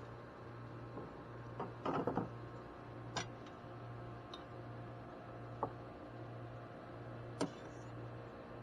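A few sharp clicks and knocks spread out, with a short rattling cluster about two seconds in, over a low steady hum.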